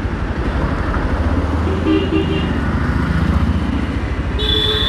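Motorcycle engine running under way, heard from the rider's seat amid road traffic. A few short horn toots sound about two seconds in, and another vehicle horn sounds near the end.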